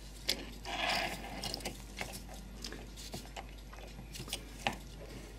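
Light, scattered clicks and taps of brass clock-movement parts being handled, with a brief rustle about a second in.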